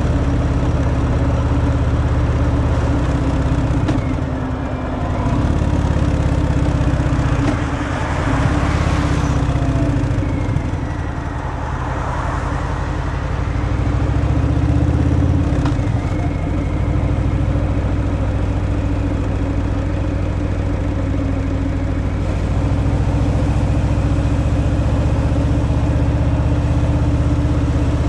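Harley-Davidson Fat Boy's V-twin engine running through its stock exhaust, a steady low rumble. Engine speed drops and picks up again a few times in the first half, then holds steady.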